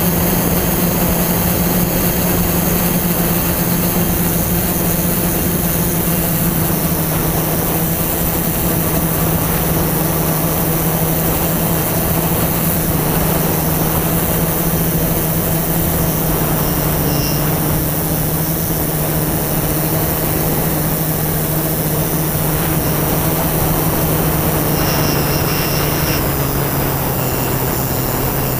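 Drone's motors and propellers heard from the onboard camera: a steady hum over a rushing noise, dropping in pitch near the end.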